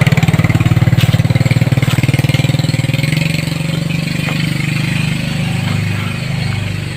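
Motorcycle engine running steadily with a rapid, even exhaust pulse, easing off slightly about halfway through.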